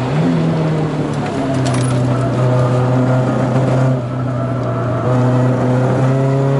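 1980 VW Scirocco Mk1 GT's four-cylinder engine heard from inside the cabin, pulling under load at track pace. It eases off briefly about four seconds in, then pulls again with its pitch slowly rising near the end.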